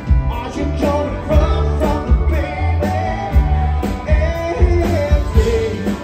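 Live rock and roll band playing loudly: upright piano, electric guitar, bass and drums keeping a steady beat.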